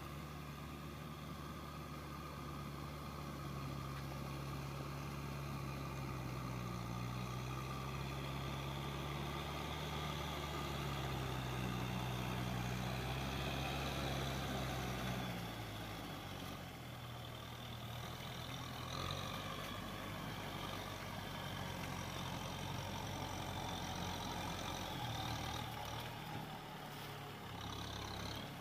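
Kubota M6040SU tractor's diesel engine running steadily as the tractor drives through paddy mud. About halfway through, the engine note drops lower.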